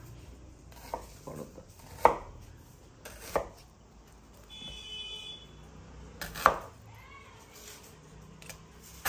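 Kitchen knife slicing onions on a cutting board: a few sharp, unevenly spaced chopping strikes, the loudest about six and a half seconds in.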